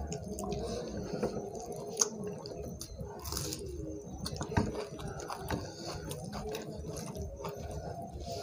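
People eating rice and curry with their hands: wet squishing of fingers mixing rice and gravy, chewing, and scattered small clicks.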